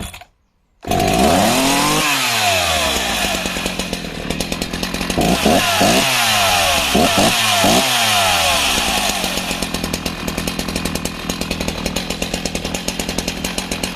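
Husqvarna 61 two-stroke chainsaw firing up about a second in, then revved up and down several times before running on steadily at speed.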